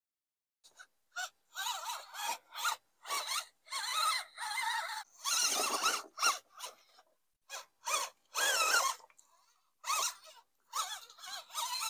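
Mini RC mud truck's brushed electric motor and gearbox whining in a run of short throttle bursts, the pitch wavering up and down within each burst, with brief gaps between them.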